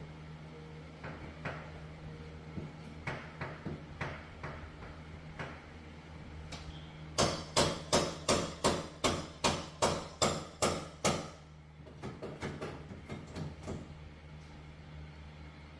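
Hammer blows: scattered light taps, then a run of about a dozen hard strikes, roughly three a second for four seconds, then lighter taps again. A steady low hum runs underneath.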